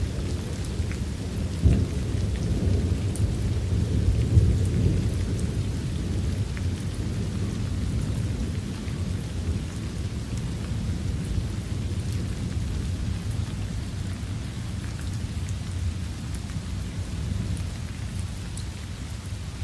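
Steady rain with a low rumble of thunder, louder in the first few seconds and then settling into an even patter of rain.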